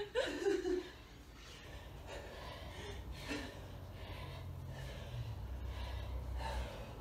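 Hard breathing of two women doing kettlebell swings, with short forceful breaths, the clearest just after the start, about three seconds in and near the end.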